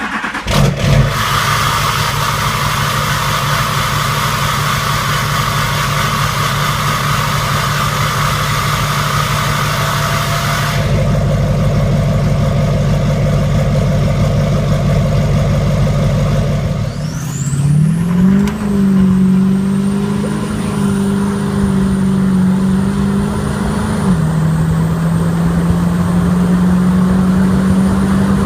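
2009 GMC Sierra's 6.6 L LMM Duramax V8 turbodiesel with a straight-piped exhaust, running loud and steady. About 17 seconds in it revs up with a rising turbo whistle, then holds at higher revs with the whistle steady.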